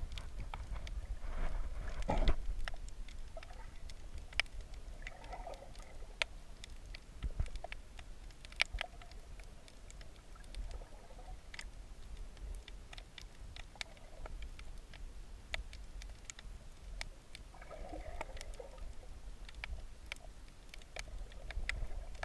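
Underwater sound picked up by a submerged camera in shallow sea water: a steady low rumble of moving water, scattered sharp clicks and crackles, and a muffled swell of water noise every few seconds.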